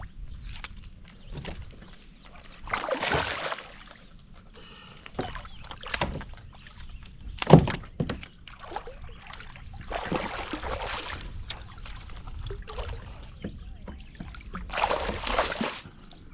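Hooked catfish thrashing and splashing at the water's surface beside a kayak, in several bursts of about a second each. A sharp knock, the loudest sound, comes about halfway through.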